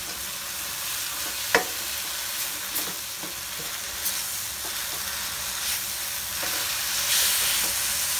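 Chopped tomatoes, onion, garlic and ginger sizzling as they are sautéed in a nonstick wok, stirred with a spatula that scrapes and clicks against the pan now and then. The sizzle grows a little louder near the end.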